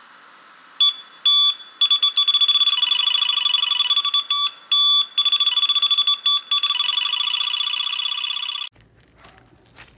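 Electronic alarm-like sound effect for a studio logo: a few short, high beeps, then a fast, continuous warbling trill from about two seconds in that cuts off suddenly near the end.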